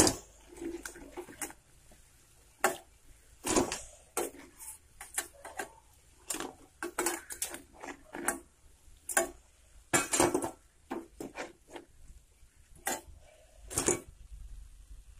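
A slotted steel spatula clinking and scraping against a stainless-steel kadai in irregular metal clanks as fried egg bajjis are lifted out of the oil.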